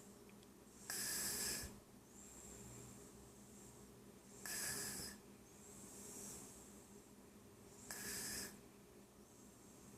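Toddler snoring in her sleep while sitting up in a chair: a loud, hissy snoring breath about every three and a half seconds, three times, with softer breathing in between.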